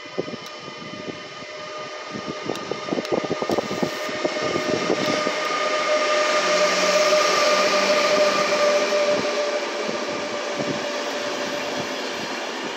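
Siemens Taurus electric locomotive hauling ČD passenger coaches passes through a station at speed. A swelling rush of wheels and air carries a steady whine from the locomotive, loudest about halfway through as the engine goes by, then the coaches roll past with wheel clatter.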